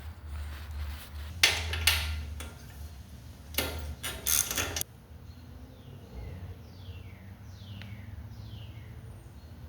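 Hand tools working a stuck screw on a pressure washer: a few sharp clicks and scrapes, then a run of short squeaks that fall in pitch, as the screw is turned.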